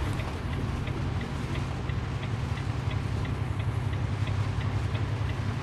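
Vehicle driving on a wet highway, heard from inside the cabin: a steady low engine and road drone with tyre hiss, and a faint regular ticking about three times a second.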